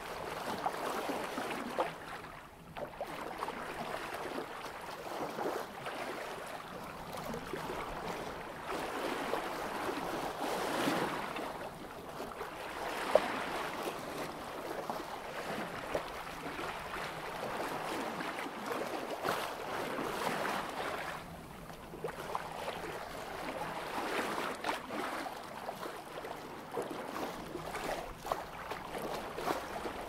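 Sea water rushing and splashing along the bow of a sailboat moving at about 3 knots, swelling and easing every few seconds as the hull meets the waves. A single sharp knock sounds about halfway through.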